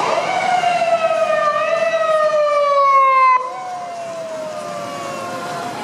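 Japanese police patrol car's siren wailing on an emergency run, its pitch sliding slowly downward. A little over three seconds in it breaks off sharply and comes back quieter, again falling in pitch.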